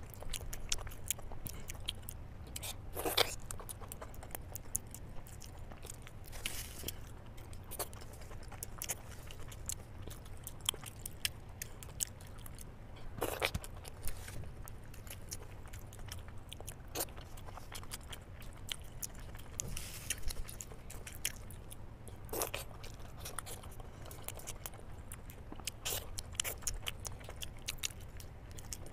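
Close-miked eating of whole boiled eggs in masala gravy: biting and chewing with many small wet mouth clicks, and a handful of louder bites spread through, over a steady low hum.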